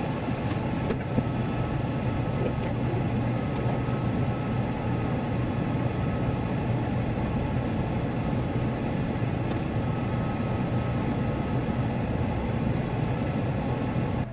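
Unox oven running at baking heat: a steady, loud fan noise with a faint whine that comes and goes and a few faint ticks. The oven is very loud.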